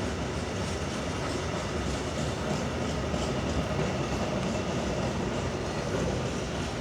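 Freight train rolling past, its wheels running on the rails in a steady, continuous noise.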